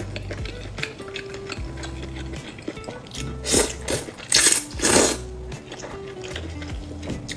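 Close-miked eating sounds: utensils clicking against a bowl, with three loud slurps about halfway through, over soft background music.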